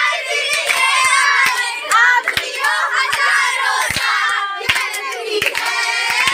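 A group of young people singing together while clapping their hands along with the song.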